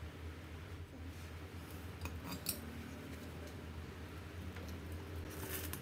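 A metal spoon clicking and scraping in a glass bowl of dipping sauce: a few light clinks about two seconds in and again near the end, over a steady low hum.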